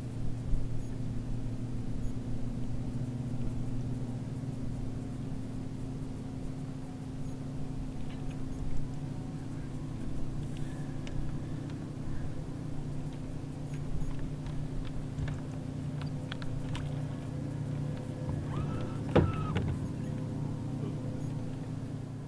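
Electric trolling motor running with a steady low hum. A few light clicks, and one sharper knock near the end.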